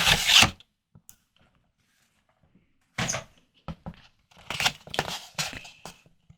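Close-miked eating sounds of prawn cocktail. A noisy stretch breaks off about half a second in, then after a pause come short separate bursts of bites, chewing and wet mouth sounds.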